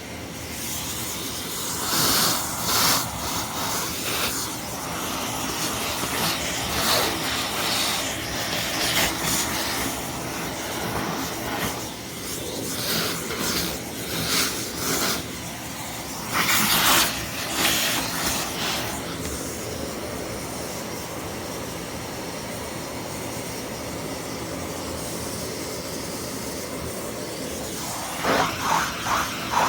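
Vacuum cleaner running steadily, with several louder rushes of noise over the first twenty seconds before it settles.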